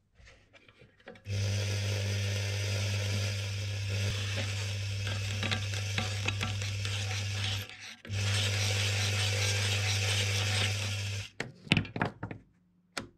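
Pfaff sewing machine electric motor running on its first test with a newly fitted direction-reversing cam switch: a steady hum with a whirring rush. It cuts out for about half a second and starts again, as the switch is turned through off to the other direction. A few sharp clicks follow once it stops near the end.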